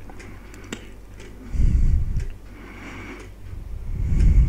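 Car creeping along a bumpy dirt track, heard from inside the cabin through a dashcam's microphone: a steady low background with two bouts of low rumbling, one about a second and a half in and one building near the end.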